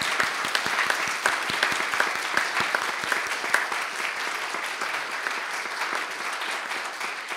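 Church congregation applauding, a steady patter of many hands clapping.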